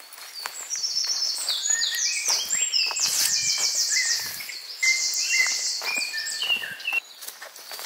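Several songbirds singing at once, with rapid high trills and runs of short whistled notes overlapping. Soft knocks of footfalls on an earth path sound under them.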